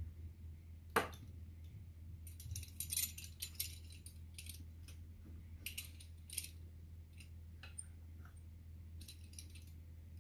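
Faint, scattered light metallic clicks and jingles from handling a metal pizza-wheel cutter while cutting and lifting pieces of dough, with one sharper click about a second in, over a low steady hum.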